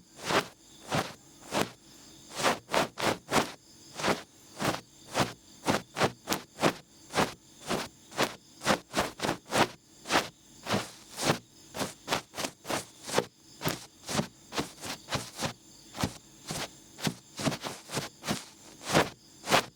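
Feather-tufted ear pick brushing and scraping close against a microphone in repeated quick strokes, roughly two to four a second, each a short scratchy swish.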